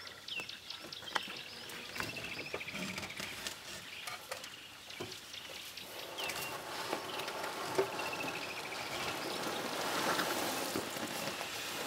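Birds calling in the bush: a few descending trilled calls and short down-slurred notes. Under them are scattered crackles and clicks, and a rustling hiss that grows louder about halfway through.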